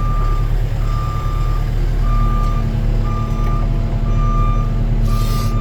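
Forklift backup alarm beeping about once a second over its steady engine rumble as it reverses with the bale on its forks, with a short hiss near the end.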